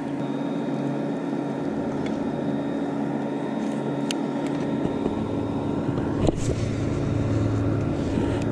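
A boat motor running steadily with a constant even hum, and a few sharp clicks about four and six seconds in.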